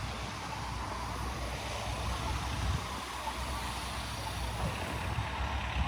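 Steady outdoor city background noise: a low rumble under a constant hiss, with no single event standing out.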